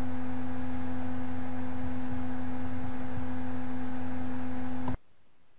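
Steady electrical hum: one clear tone with overtones over a lower drone, cutting off suddenly about five seconds in and leaving only faint hiss.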